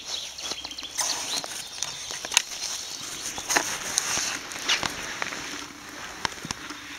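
Irregular rustling and crunching in dry forest leaf litter and soil, with scattered sharp clicks and knocks.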